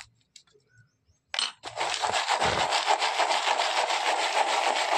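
Small firework star pellets rolling and rattling inside a steel cup as it is swirled to coat them with black powder. The dense, continuous rattle starts about a second and a half in.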